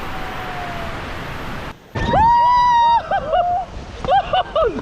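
Rushing whitewater noise, cut off short; then a person's loud, long, held shout, like a whoop, followed by short shouts or laughter.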